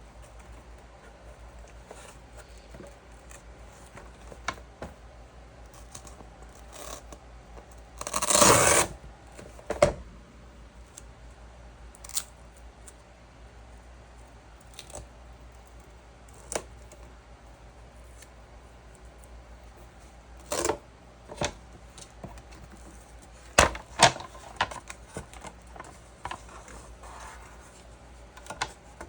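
Scattered light clicks and knocks of small objects being handled, with one louder scraping or tearing sound lasting about a second, roughly eight seconds in.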